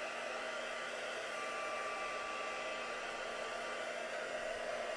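Handheld craft heat tool blowing steadily with a thin, steady whine, drying freshly sprayed ink on a card background.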